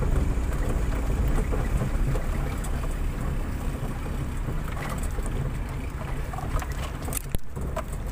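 Car driving on a rough dirt road, heard from inside the cabin: a steady low rumble of engine and tyres, with a few sharp clicks and knocks near the end.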